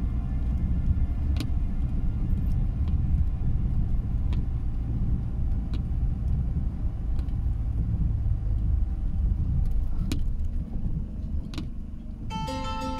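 Car cabin rumble of the engine and tyres on a snowy road. A windscreen wiper clicks at the end of its sweep about every second and a half. Plucked-string music starts near the end.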